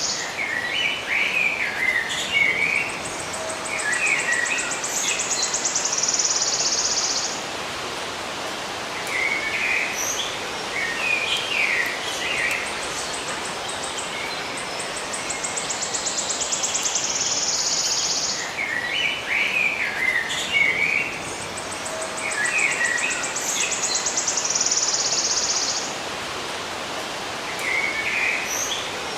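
Birds singing in short bursts of chirping, warbling notes over a steady background hiss, with a high, buzzy trill lasting a few seconds. The same pattern of song and trill recurs about every ten seconds.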